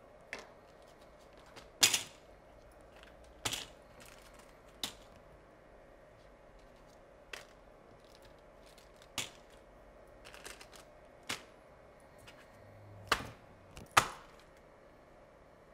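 Small electronic parts, plastic bags and cardboard cards being handled and set down on a desk: about a dozen scattered sharp clicks and taps with light rustling. The loudest come about two seconds in and near the end.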